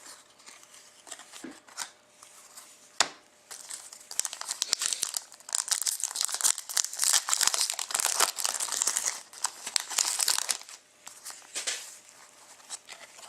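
Plastic trading-card pack wrapper being torn open and crinkled in the hands, with a sharp click about three seconds in and dense crackling that dies down near the end.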